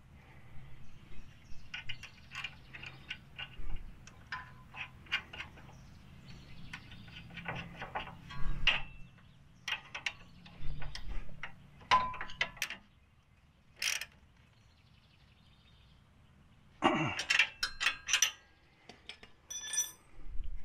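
A steel wrench clicking and clinking against a steel sway bar disconnect link as its jam nut is worked, in short runs of light metal taps. There is a quiet stretch of a few seconds about two-thirds through, then a few more clinks.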